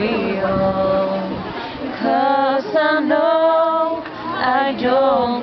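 Two young women singing a cappella together, unaccompanied voices holding and moving between sustained melodic notes.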